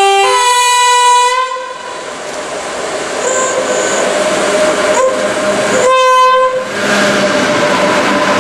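Horn of a Freightliner Class 86 electric locomotive: a loud two-note blast, low then high, ending about a second and a half in, and a second, shorter blast about six seconds in. Between and after the blasts, the wheel and rail noise of the locomotives and container wagons rises as they run past.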